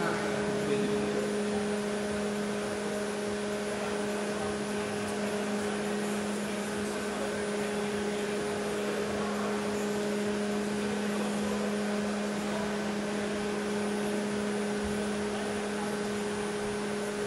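Large wind-making fans running steadily: a constant hum with a rush of air.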